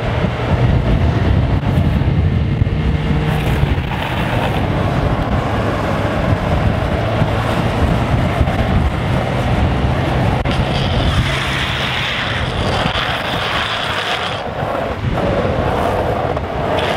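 Wind rushing over the microphone with road rumble and a steady low drone during a fast downhill longboard run. A brighter hiss swells from about ten seconds in and eases off a few seconds later.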